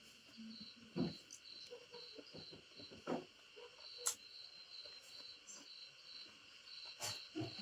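Crickets chirping in a steady rhythm, about two or three chirps a second, over a constant high drone. A few short, sharp clicks of eating break in about one, three, four and seven seconds in.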